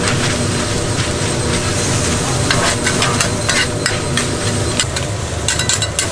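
Stir-fried gopchang (intestines with vegetables) sizzling on a hot pan while it is stirred and scraped with utensils, which clack sharply against the metal many times in the second half, over a steady low rumble.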